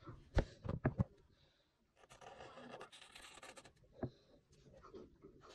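A few sharp knocks in the first second, then a Sharpie marker scratching across paper in drawing strokes, with another single knock about four seconds in.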